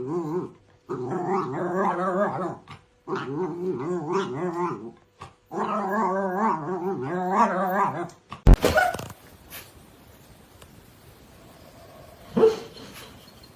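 A dog growling and howling in four long, wavering runs, each a second or two long. About eight and a half seconds in comes a sudden loud knock, and a short sharp sound near the end.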